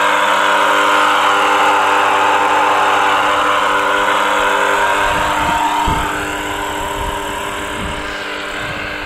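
Frame pool's filter circulation pump running abnormally loud: a steady electric-motor hum with a harsh crackling noise over it, the sign of a fault inside the pump.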